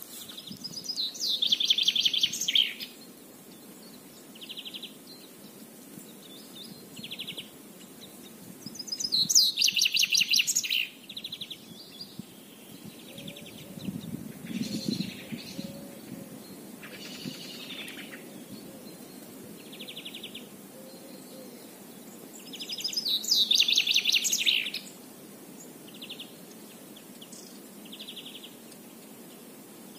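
Songbirds singing. A loud song phrase of about two seconds comes three times, roughly every ten seconds, with shorter high calls in between.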